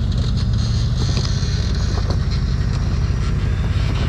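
Off-road vehicle engine running steadily at low revs, a constant low hum with a few faint clicks over it.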